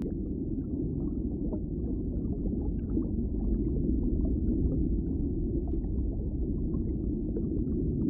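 Steady, muffled underwater rumble with faint scattered bubbling ticks.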